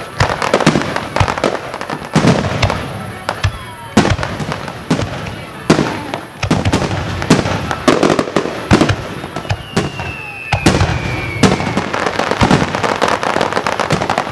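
Aerial fireworks bursting one after another, with booms at irregular spacing and crackling between them. A whistle falling in pitch sounds about ten seconds in.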